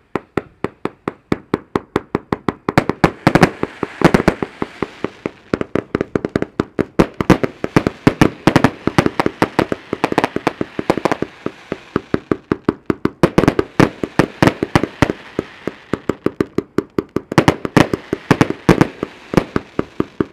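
A 130-shot, 500 g consumer firework cake firing its tubes in rapid succession, about five sharp shots a second, with a noisy hiss of the bursts between them.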